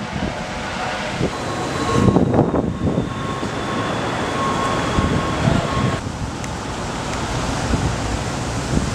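Outdoor street ambience: a steady rush of wind and traffic noise. A thin steady high tone is held from about one second in until about six seconds in, when the background changes abruptly.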